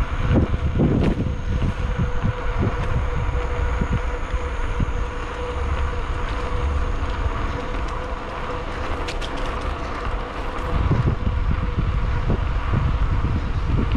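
Wind buffeting the microphone of a handlebar-mounted camera on a bicycle coasting downhill, with tyres rolling on a concrete path, a faint steady hum and a few small knocks from bumps.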